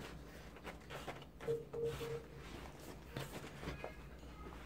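Faint rustling and soft taps of origami paper being handled and creased by hand.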